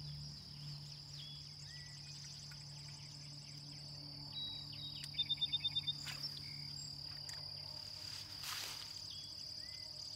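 Insects in a steady high, even drone, with a few short falling chirps scattered through it and, a little past midway, a quick run of about seven high notes that is the loudest sound.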